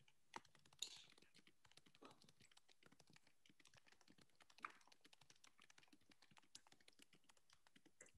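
Faint, quick clicking of a computer keyboard being typed on, several keystrokes a second.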